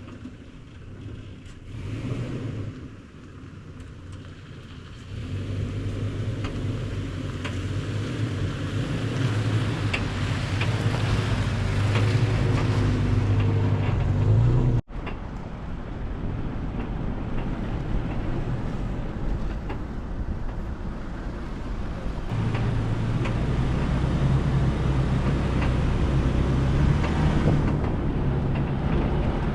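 An engine running with a steady low hum that grows louder over the first several seconds. It breaks off abruptly about halfway through, then a similar steady engine hum carries on and swells again near the end.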